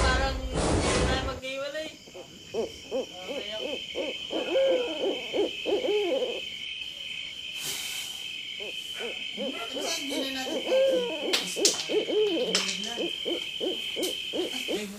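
A loud passage of music cuts off about a second and a half in. Then an owl hoots again and again, in rising-and-falling calls over a steady high-pitched tone, a night-time horror sound effect.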